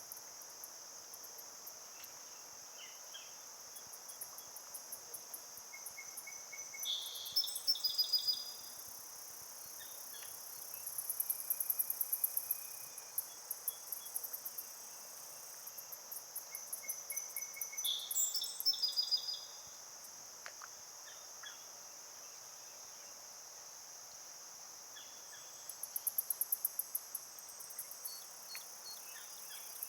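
Insect chorus of crickets and similar singing insects: a steady high trill underneath, with louder rapidly pulsing choruses that swell and fade four times. Short chirping notes come in twice.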